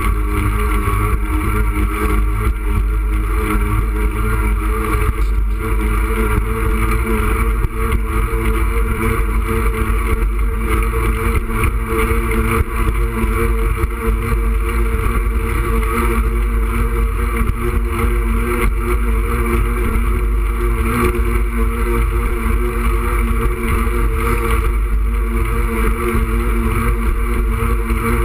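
Steady rumbling wind noise on a moving camera's microphone, mixed with the constant drone of car traffic passing alongside.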